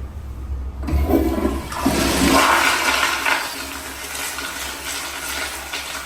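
Kohler Highcliff toilet flushing. It starts suddenly about a second in, builds to a loud rush of water, then tapers off toward the end.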